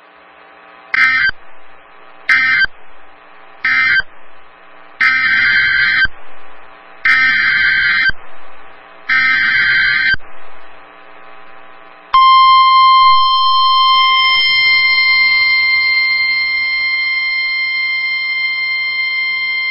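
NOAA Weather Radio EAS/SAME data bursts: three short end-of-message bursts, then three longer header bursts of about a second each that announce the next flood warning. About twelve seconds in, the steady 1050 Hz warning alarm tone starts and holds for about nine seconds.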